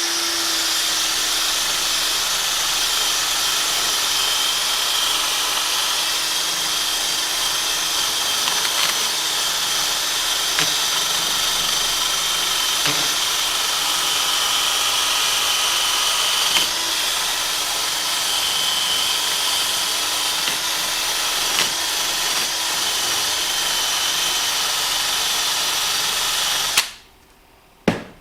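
Small high-speed power tool running steadily at one speed while cleaning up a freshly cast copper coin, with a few faint ticks where it touches the work. It cuts off suddenly near the end.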